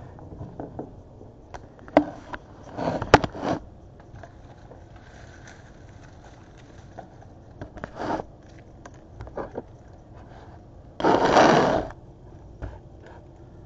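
Onions being handled in a plastic mesh produce bag: irregular rustling and scraping of the netting with a few sharp knocks as onions are moved on the countertop. The loudest is a scraping rustle of about a second near the end.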